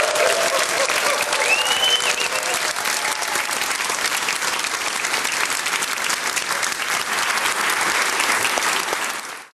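Audience applauding after a performer's thank-you, with a short whistle about one and a half seconds in. The applause fades out quickly near the end.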